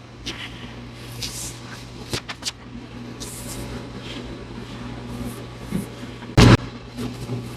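A few light clicks about two seconds in, then one loud, short thump about six and a half seconds in, over a steady low hum.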